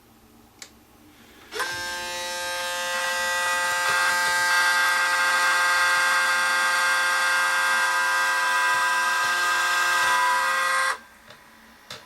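A small electric motor runs at a steady speed with a high whine, starting suddenly about a second and a half in and cutting off suddenly near the end.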